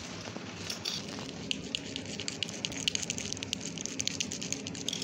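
Sewing tracing wheel rolling over paper pattern and fabric, its serrated wheel giving a fast, irregular run of fine clicks from about a second in, over a steady low hum.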